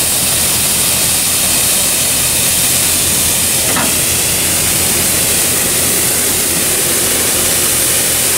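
Hydraulic rotary broom sweeper's bristles spinning against asphalt, a steady hiss of brushed grit. Under it, the steady hum of the JCB 531-70 telehandler's diesel engine.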